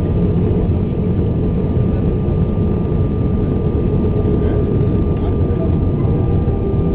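Steady cabin noise inside an Airbus A320 in flight: a continuous low rumble of engines and airflow, with a steady whine from the engines on top.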